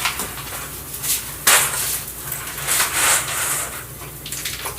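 Kitchen handling sounds: a few knocks and clatters of cookware and utensils, about one every second and a half, over a low steady hum.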